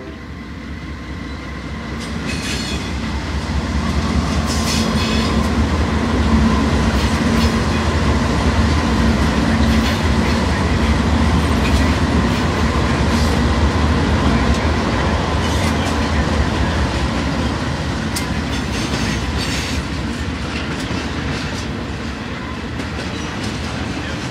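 A lashup of five GE C44-9W diesel locomotives, V16 engines running, passing close by, growing louder over the first several seconds and then slowly fading as the intermodal cars follow. Steel wheels click and clatter over the rail joints throughout.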